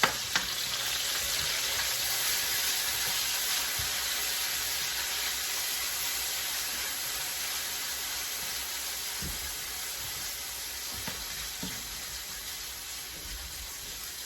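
Minced garlic sautéing in hot coconut oil in a pan: a steady sizzle that slowly dies down, with a few faint knocks.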